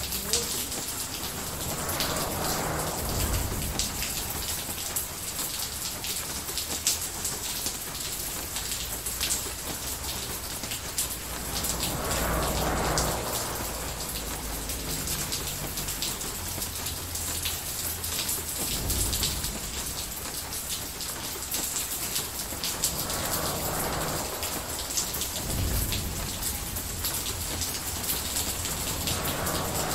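Steady rain falling, with low rumbles of distant thunder swelling up and fading several times.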